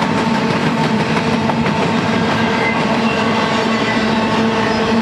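Empty intermodal well cars of a freight train rolling past: a steady, loud rumble and rattle of steel wheels on rail, with some clacking over the rail joints and a steady droning tone running through it.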